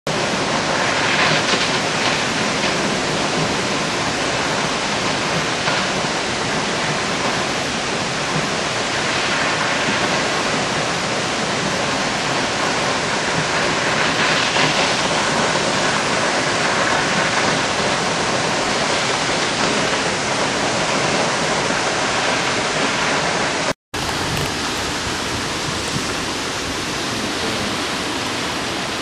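Vernal Falls pouring down its granite face: a steady, dense rush of falling water. It breaks off for an instant near the end and comes back a little softer.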